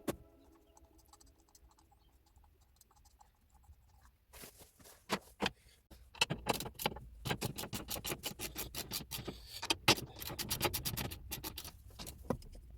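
Rapid metallic clicking and clinking of hand tools on the engine. Scattered clicks come about four seconds in, then dense, fast runs of clicks from about six seconds on.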